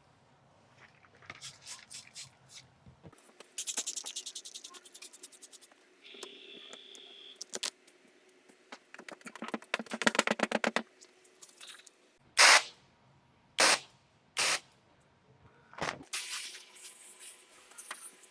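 Paint protection film being handled on a hood: fast crackling and rubbing as the film is pulled and worked, then three short squirts from a spray bottle of slip solution about two-thirds in.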